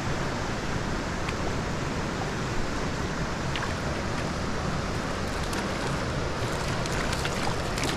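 Steady rush of creek water running over riffles, an even wash of noise, with a few light clicks near the end.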